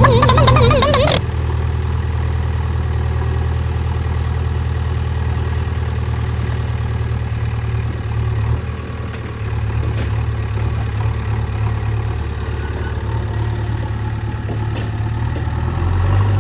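JCB 3DX backhoe loader's 76 hp diesel engine running steadily with a deep, low note. It follows a louder, wavering high tone that cuts off suddenly about a second in.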